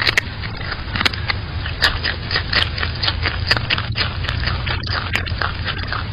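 A marmot biting and chewing food held in its paws right at the microphone: irregular crunching clicks, three or four a second, over a steady low hum.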